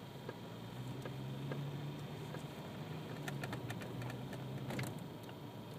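Low steady hum of a car heard from inside the cabin, with scattered light clicks and ticks.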